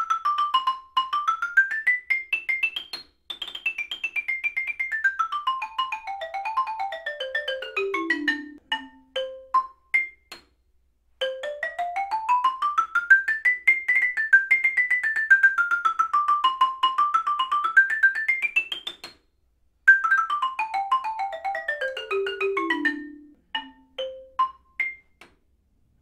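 Xylophone played with mallets, first a Vic Firth M132 pair, then a Malletech eMotion Soft pair: fast runs of single notes going up and down the range, each ending in a few spaced single strokes. There is a short pause, about ten seconds in, where the mallets are swapped.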